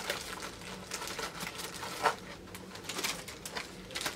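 Light rustling of plastic packaging and small scattered clicks as sunglasses are handled, with a slightly louder click about two seconds in.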